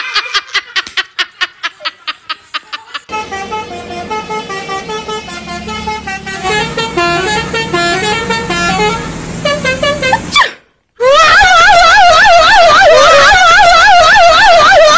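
A fast run of clicks for the first three seconds, then a Basuri telolet bus horn playing a melody of stepping horn notes. It breaks off briefly about ten seconds in and comes back loud with a fast warbling tune.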